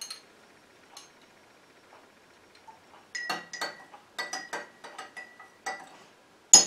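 Metal spoon stirring in a glass jar of herbal oil, clinking against the glass in a run of short, ringing clinks that start about three seconds in, with a louder clink near the end. The stirring mixes a teaspoon of vitamin E into the strained oil.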